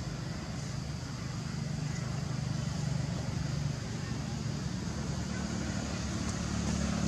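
A steady low engine hum, its pitch shifting slightly partway through.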